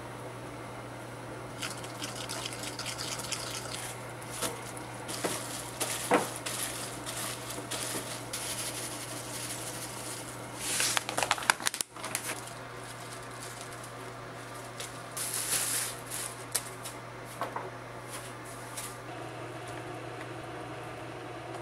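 Kitchen handling sounds: scattered clicks and clinks and short spells of rustling or clattering, busiest about halfway through, over a steady low hum.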